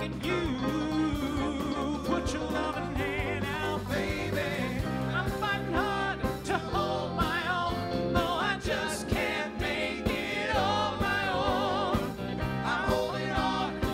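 A live four-man vocal group singing in harmony over a backing band with electric guitar and drums; the sung notes waver with vibrato.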